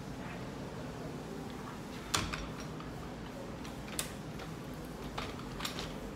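Steady low room hum with a few sharp clicks, the loudest about two seconds in. The piano playing behind the closed soundproof door is not heard.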